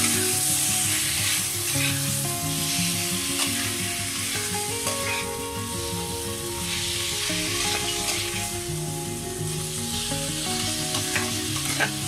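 Chicken pieces, potatoes and a whole garlic bulb frying in hot oil in a wok, with a steady sizzle. A spatula scrapes and knocks against the pan a few times, sharpest near the end. A background tune of held notes plays underneath.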